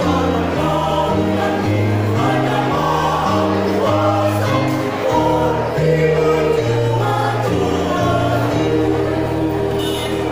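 A choir singing in several parts, with sustained notes over a low bass line that changes pitch about once a second.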